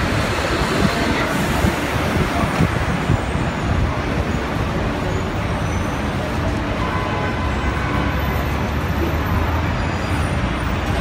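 Steady street traffic noise from taxis, cars and buses moving along a busy city avenue.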